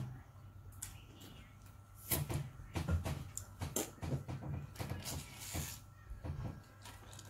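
Close-up eating sounds: fingers picking apart seafood, with many small clicks and crackles, mouth smacking and chewing, and low knocks against the table or plate.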